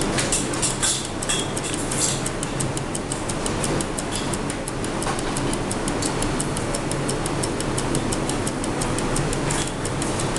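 Closed electric waffle iron with batter cooking inside, giving a rapid, steady crackle over a low hum.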